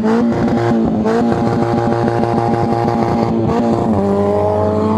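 Car engine running hard at steady high revs. Its pitch steps up about a second in and drops back a little before four seconds, as with throttle changes or gear shifts.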